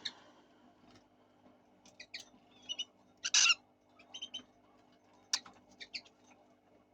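Fischer's lovebirds calling: scattered short, high chirps, with one longer harsh squawk about three and a half seconds in.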